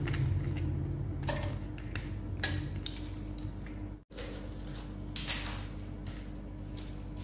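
Ice cubes knocked out of a plastic ice-cube tray dropping and clinking into a stainless-steel pot of water: several separate clinks over a steady low hum.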